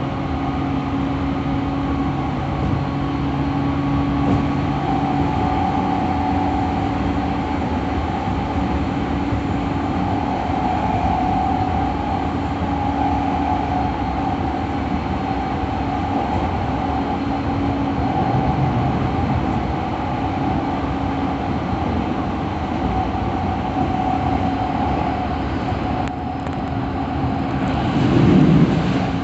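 E217 series electric commuter train running at steady speed: a continuous rumble of wheels on rail with a steady motor hum. A couple of louder low thumps come near the end.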